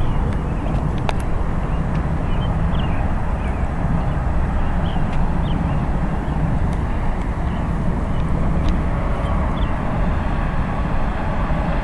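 Steady low rumble of wheels rolling over smooth concrete, with faint short high chirps scattered through it.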